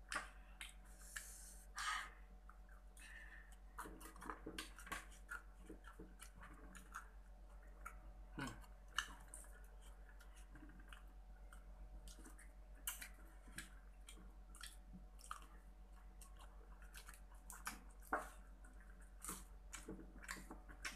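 Faint close-up eating sounds of KFC fried chicken being chewed and bitten, with irregular crunches and wet mouth clicks scattered throughout.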